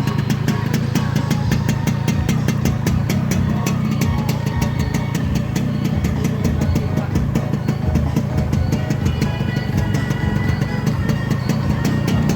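Yamaha RX-King 135cc single-cylinder two-stroke engine idling steadily, set up for a low, rough 'ngorok' (snoring) idle note.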